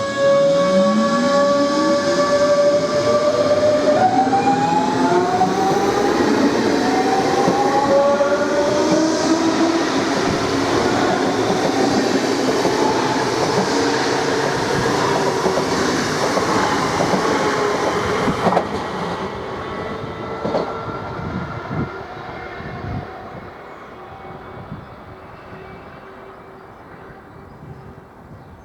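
Three coupled DB class 424 S-Bahn electric multiple units accelerating: the traction drives give the squealing whine behind their 'Quietschie' nickname, several tones rising together in pitch over the first eight seconds or so. Wheel and running noise follows and fades steadily over the last ten seconds as the train draws away, with a few sharp clacks near the end.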